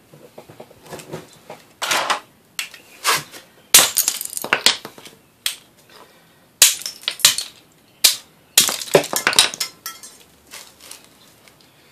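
Aquarium light fixture being broken apart for scrap: an irregular run of sharp cracks, snaps and clinks as its parts are pried and pulled loose.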